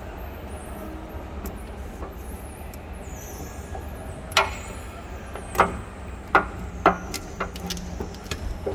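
Sharp clicking from air pockets being rubbed out of the glue as a pressure roller is worked over a self-adhesive escalator step panel, which activates the adhesive. The clicks come irregularly from about four seconds in, over a steady low hum.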